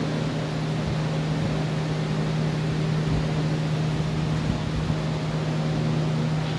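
A steady low mechanical hum over a constant background hiss, unchanging throughout.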